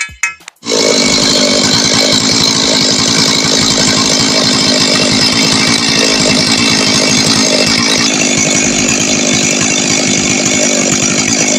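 Two-stroke chainsaw running loud and steady at high revs, cutting in abruptly under a second in, with a slight change in tone about eight seconds in.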